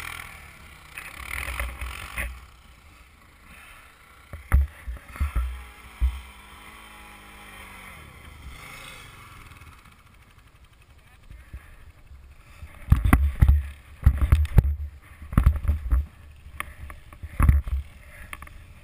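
ATVs moving through snow, one towing the other on a strap: an engine runs faintly, then the towed ATV bumps and jolts, with a cluster of heavy low thumps and knocks in the second half as it ploughs through deep snow.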